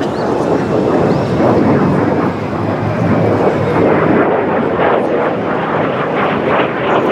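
Kawasaki T-4 jet trainer flying overhead, the loud, steady rushing noise of its twin turbofan engines.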